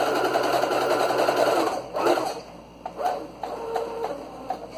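Electric sewing machine stitching a seam at speed for about two seconds, its motor humming under the rapid needle clatter, then stopping. A few short bursts of stitching follow, as when backstitching to lock the end of the seam.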